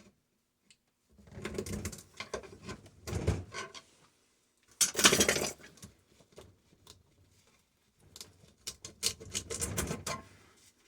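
Metal scraping and clattering in several bursts as parts of a sealed compressor are handled and pulled apart. The loudest burst comes about five seconds in.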